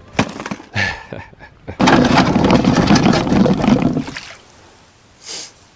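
A couple of knocks as a box is set down in a canoe, then about two seconds of loud scraping and sloshing as the canoe is pushed off the gravel shore into the water, followed by a brief splash-like hiss near the end.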